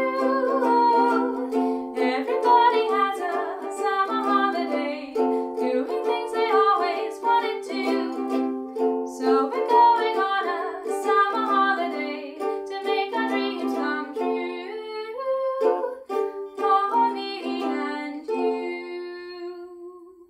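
Ukulele strummed and picked through an instrumental passage, chord after chord with ringing notes. The last chord rings out and fades near the end.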